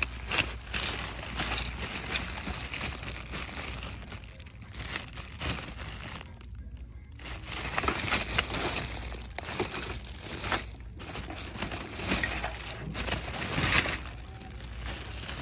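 Clear plastic bags of toys crinkling and rustling as a hand digs through them and pulls them about. The crinkling pauses briefly twice.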